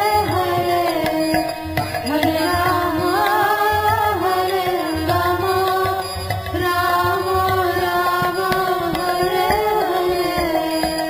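Background music: Indian devotional song, a voice singing a winding melody over tabla and a steady drone.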